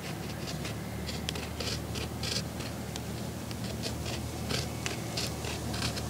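Flint knife slicing a strip from deer rawhide, a quick rasping scrape with each short stroke, about three strokes a second.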